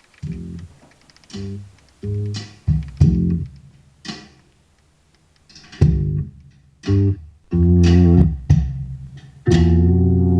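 Music with plucked bass and guitar, played through a car's front two-way component speakers with the subwoofer switched off. It comes in short stop-start phrases with brief pauses, and a longer held chord starts near the end.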